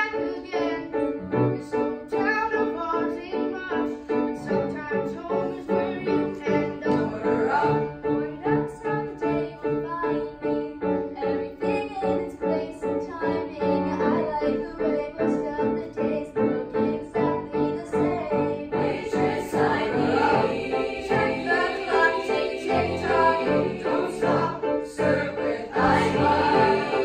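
Youth choir singing with grand piano accompaniment, the piano keeping a steady pulse of chords. The sound grows fuller about two-thirds of the way through.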